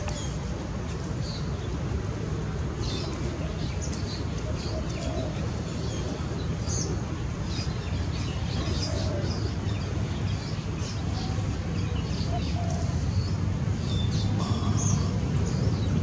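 Scattered short, high chirps from small animals over a steady low rumble that grows slightly louder near the end.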